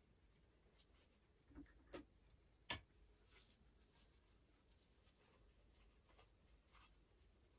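Faint handling and rubbing: a few light knocks and clicks about one and a half to three seconds in, the last the loudest, then soft scratching as lens-cleaning paper damp with ethanol is wiped over the metal bayonet mount of an smc Pentax-M 28mm f/2.8 lens.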